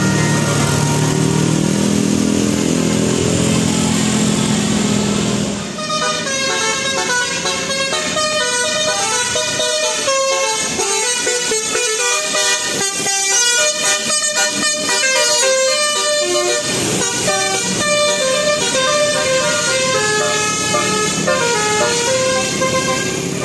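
Bus telolet horn, a multi-tone air horn, playing a quick stepping tune of short notes that starts about six seconds in, after a stretch of steady engine-like noise.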